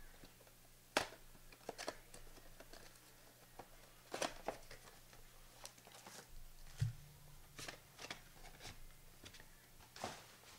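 Trading cards and foil pack wrappers being handled: soft, scattered rustles and card flicks, with one sharper knock about seven seconds in.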